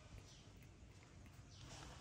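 Near silence, with a few faint short noises of a baby monkey sucking milk from a feeding bottle.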